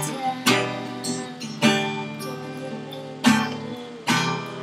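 Acoustic guitar strummed chords, about five strokes at an uneven pace, each left to ring out.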